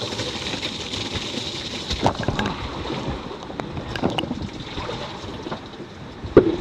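Wind and rushing water aboard a sailboat under way at sea, with a few sharp knocks, the loudest near the end.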